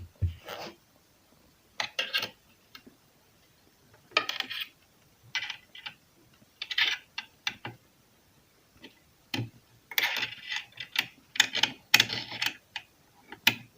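Small screws being tightened back into a Singer Heavy Duty sewing machine: irregular metallic clicks, taps and scrapes of the screwdriver and parts, with short pauses between.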